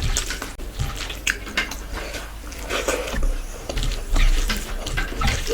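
Close-miked wet chewing and biting by a person eating chicken masala with rice and gravy, with many irregular short smacking clicks.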